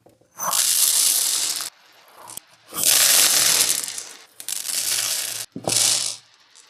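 Small plastic beads rattling and crunching in four bursts of about a second each, with short pauses between them.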